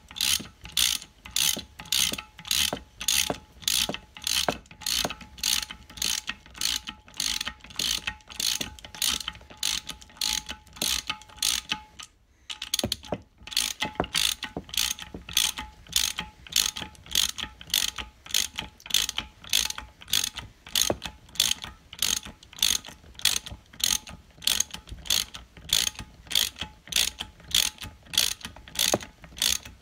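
Hand socket ratchet clicking steadily, about two clicks a second with a brief pause about twelve seconds in, as it runs the big-end nuts down loosely on the connecting rods of a BSA A70L Lightning crankshaft before they are torqued.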